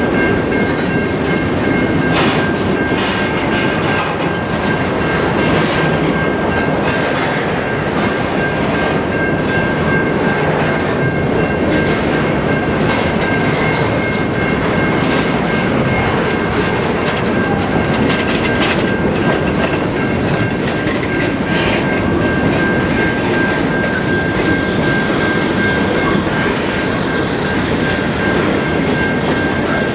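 Loaded freight train of covered grain hopper cars rolling past close by: a steady rumble of steel wheels on rail with occasional clicks, and a steady high-pitched squeal from the wheels held throughout.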